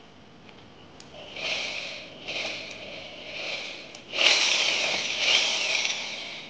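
An old door double lock being taken off: a rasping, scraping noise in two stretches, the second louder and longer.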